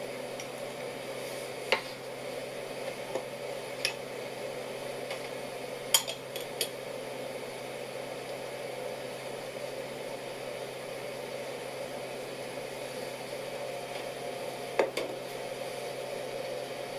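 Cooking utensils clinking against a pot or dish a handful of times, over a steady kitchen hiss; the sharpest clinks come about six seconds in and near the end.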